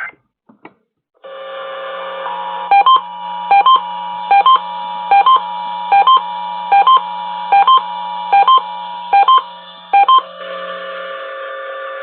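A rapid run of short electronic beeps in close pairs, about ten pairs under a second apart, very loud and touch-tone-like, over steady radio background audio. They are signalling tones carried on the radio broadcast just ahead of an emergency alert system test.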